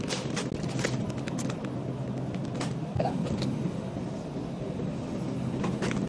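Shopping cart rolling over a tiled store floor, a steady low rumble, with sharp clicks and rattles scattered through it, most of them in the first second and a half and again near the end.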